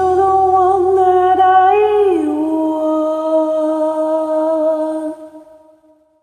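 A singer's voice holds a long wordless note, hummed or sung as an 'ooh'. It slides down in pitch about two seconds in, holds the lower note, then fades out.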